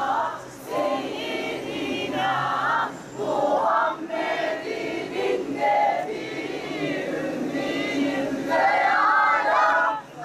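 Large crowd chanting slogans in unison, phrase after phrase with short breaks between.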